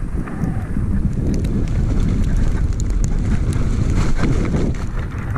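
Wind buffeting the microphone of a camera on a moving mountain bike, a steady low rumble, with scattered light clicks and rattles from the bike riding over snow.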